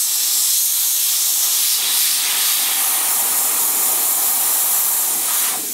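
Airbrush spraying paint with a steady hiss of compressed air, fed from a compressor regulated down to about 60 psi. The hiss drops off near the end, as the trigger is let go.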